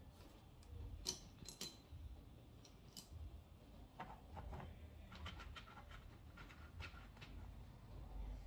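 Faint scattered light clicks and scratchy rustles of small objects being handled, over quiet room tone.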